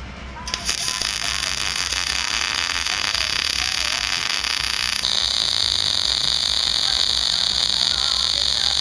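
MIG welder arc crackling steadily on steel. It starts suddenly about half a second in, and about five seconds in its sound shifts to a higher, louder hiss.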